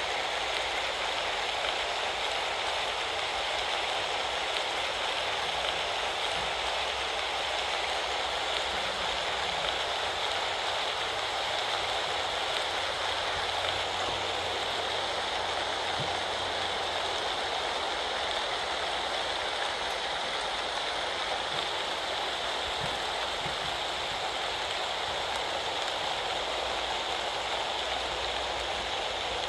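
Steady rain falling and pattering on surfaces, an even rushing hiss with a few faint drips.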